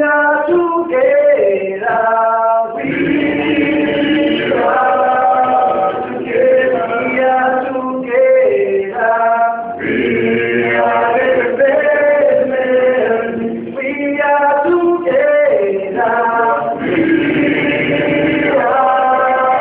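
A small group of voices, mostly male, singing a song together unaccompanied, in long held notes and phrases that repeat about every seven seconds.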